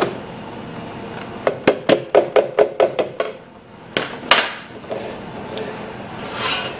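Kitchenware being handled off camera: a quick run of about eight sharp clicks and knocks, then two louder knocks, then a brief hiss near the end.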